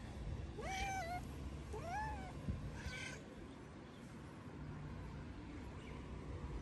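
Hungry stray tabby cat meowing three times in quick succession, each meow rising and then falling in pitch, over the first three seconds.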